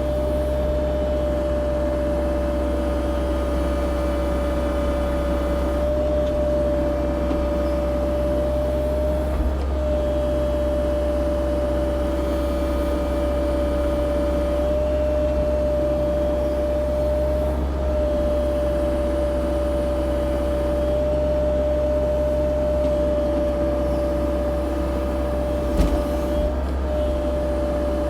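CAT 304 E2 mini excavator's diesel engine running steadily under the operator, with a constant high whine over a low rumble. A knock sounds about a third of the way in, and a louder one near the end.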